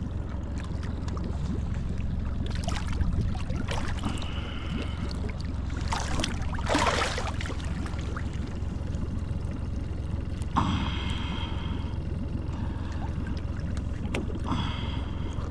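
A paddlefish splashing at the side of a boat as it is grabbed by the head and hauled up out of the water. Several short splashes, the strongest about halfway through and again a few seconds later, over a steady low rumble.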